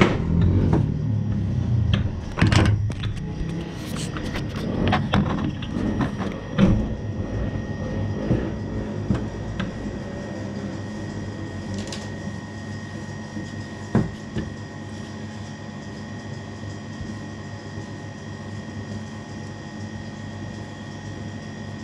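Wooden rolling pin working pasta dough on a stainless steel counter, with a run of knocks and clatter over the first several seconds and two single sharper knocks later, over a steady background hum with a faint high whine.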